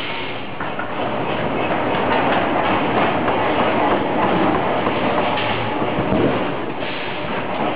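Steady, dense clattering and rumbling of forging-shop machinery around an induction heater feeding out red-hot wrench blanks.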